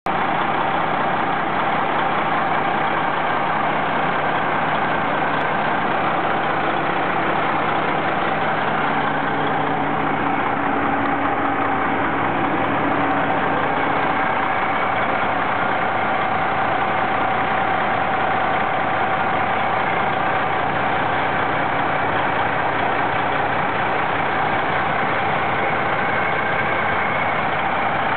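2007 Freightliner Columbia tractor's diesel engine idling steadily.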